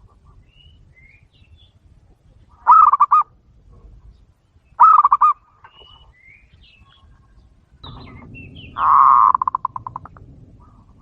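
Aviary doves calling: three loud calls, each a quick run of pulsed coo notes. The last call is the longest and trails off. Faint short high chirps sound in between.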